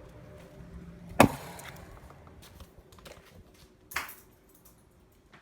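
Two sharp knocks: a loud one about a second in that rings briefly, and a lighter one about three seconds later.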